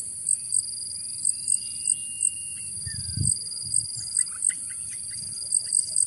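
Insects trilling steadily in several high-pitched layers, with loud short chirps repeating at irregular intervals, a couple a second. A bird gives one long level whistle about a second in and a few short notes around four seconds in, and a brief low rumble comes near the middle.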